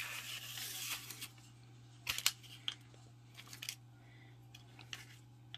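Small plastic clicks and taps as fingers handle a Mega Construx Pikachu figure and its pieces. A brief rustling scrape at the start, then scattered sharp clicks, the loudest cluster about two seconds in.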